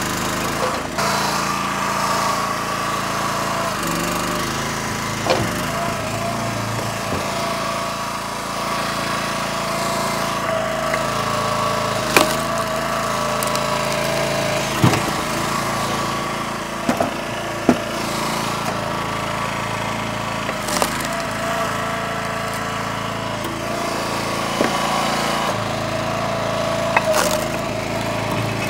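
Split-Fire 3490 two-way log splitter's small gas engine running steadily, with sharp cracks and knocks of firewood being split and handled every few seconds.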